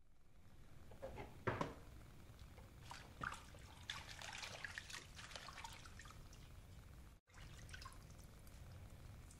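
Leafy greens being swished by hand in a plastic basin of water: small splashes, then water dripping and trickling off the leaves as they are lifted out. The loudest splash comes about a second and a half in.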